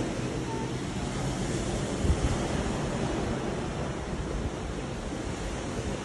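Wind blowing across a phone's microphone over the steady rush of sea water churning along a moving cruise ship's hull, with a stronger gust about two seconds in.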